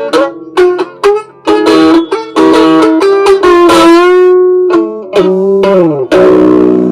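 Instrumental guitar break in a song: quick plucked notes, a long held note in the middle, then notes sliding down in pitch near the end.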